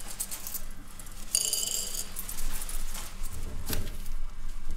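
Coins clinking onto a saucer, with a bright ringing clink about a second and a half in. Near the end there is a soft thump and rustle of toilet paper.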